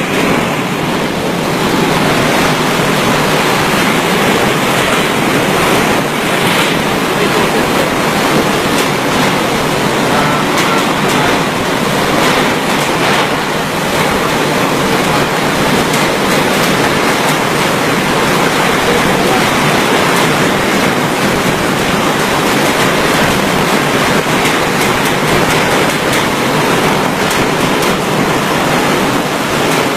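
Typhoon-force wind blowing, a loud, steady rush of noise with no let-up.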